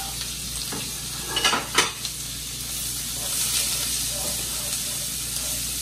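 Diced onion and bell pepper sizzling in rendered bacon fat in a skillet, stirred with a spatula, with two louder clatters of cookware about a second and a half in.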